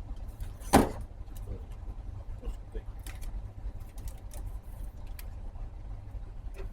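Small items being handled on a workbench: one sharp knock about a second in, then several light clicks and taps, over a steady low hum.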